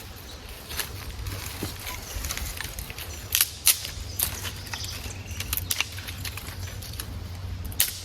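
Scattered sharp snaps and crackles of dry brush being handled or stepped on, with a few louder snaps in the middle and one near the end, over a low wind rumble on the microphone.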